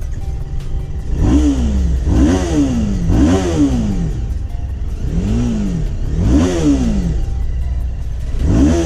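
BMW G310 RR's single-cylinder engine being revved in about six short throttle blips, each rising and falling in pitch within about a second, over a steady idle.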